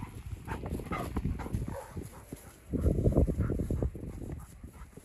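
Footsteps of a man and a Rottweiler walking over snow-dusted ground, with wind rumbling on the microphone. The rumble is loudest in a gust about three seconds in.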